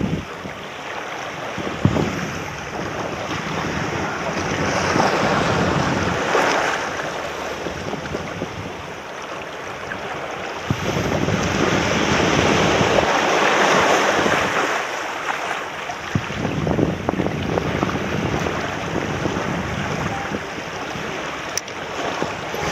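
Small waves washing over rocks and shallows at a river mouth, surging and falling back in slow swells, with wind on the microphone.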